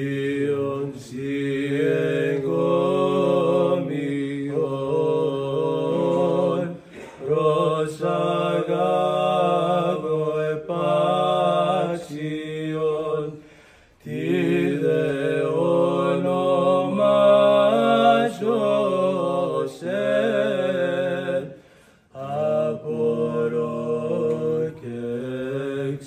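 Male voices chanting an Orthodox liturgical hymn in long sung phrases over a steady low held note, with brief breaks for breath between phrases.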